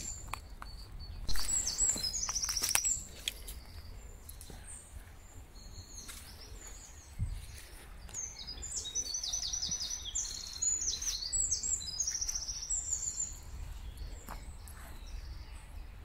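Small songbirds singing in short, repeated high trilling phrases, once in the first few seconds and again in a longer run through the middle. Footsteps crunch on dry sand and twigs in the first few seconds.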